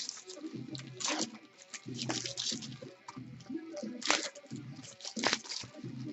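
Foil trading-card packs being torn open and crinkled in the hands, in irregular crackling bursts.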